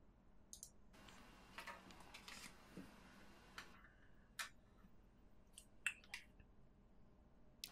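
Faint handling of small plastic Kinder Surprise capsule halves and toy parts: a soft rustle about a second in, then a few separate light plastic clicks as the pieces are picked up and fitted together.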